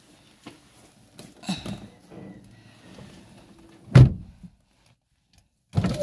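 Small knocks and rustling of a hand working in a car's interior door pocket and panel, with one heavy thunk about four seconds in. Music starts suddenly near the end.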